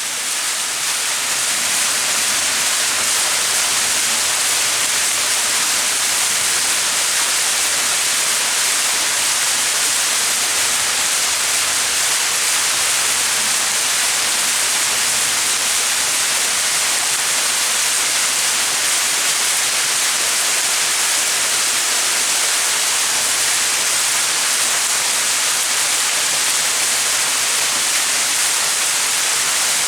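Small mountain waterfall: water falling and splashing in a steady, even rush, strongest in the upper range, fading in over the first second.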